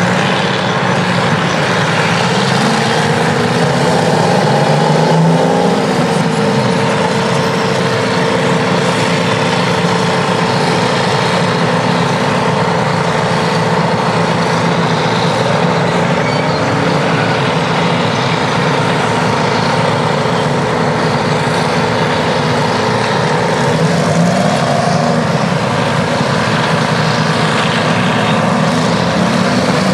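Detroit two-stroke diesel engines of vintage Terex earthmoving machines working under load, the engine note rising and falling a few times as they rev up and ease off, with a steady whine above it.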